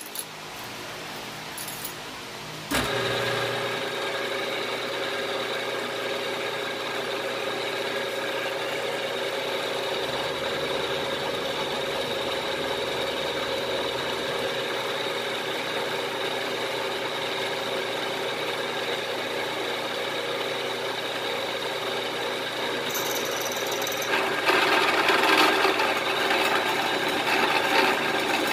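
Milling-machine spindle starts about three seconds in and runs with a steady whine, its end mill side-cutting a notch in 1/2-inch aluminium plate. Near the end the cutting grows louder and rougher as the cutter bites into the metal.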